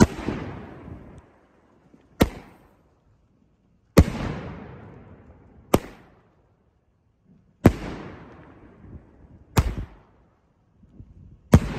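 A 16-shot 2-inch salute-and-colour firework cake firing shell after shell. Each shell leaves its tube with a sharp thump and breaks about two seconds later with a louder bang that echoes and fades. There are four breaks, roughly every four seconds.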